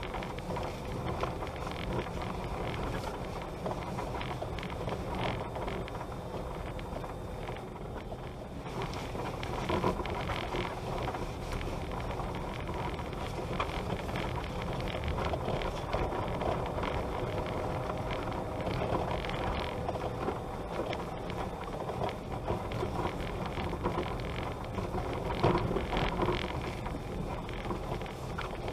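A vehicle travelling over a rutted dirt road: a steady rumble of tyres on the dirt and gravel and the jolting of the ride, with louder knocks about ten seconds in and again near the end.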